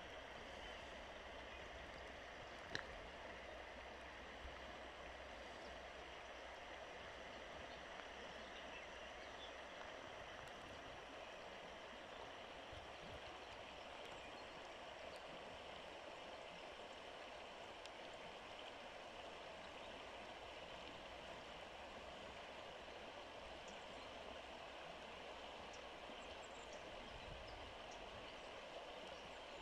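Faint, steady rush of a shallow river running over pebbles, with a single small click about three seconds in.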